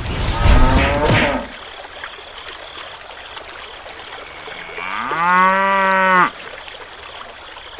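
Cow mooing twice: a short, rough call at the start, then a longer, clearer moo held steady about five seconds in that cuts off sharply.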